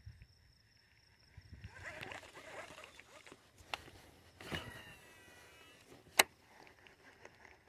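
A cast with a baitcasting reel: the spool whirs as line pays out, its pitch sliding down as it slows. About six seconds in comes one sharp click, the loudest sound, as the reel is engaged.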